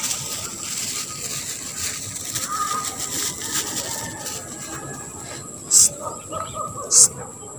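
Rural outdoor ambience: a steady high-pitched insect drone, with two short, sharp high chirps near the end.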